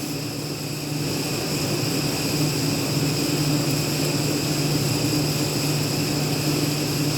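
Induction forge pumps running in the background: a steady low hum with a high whine over a hiss.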